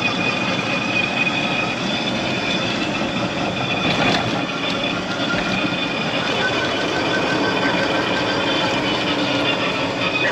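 36-volt EZGO electric golf cart driving on pavement downhill at about 18 mph: a steady high whine over an even rumble of tyre and body noise.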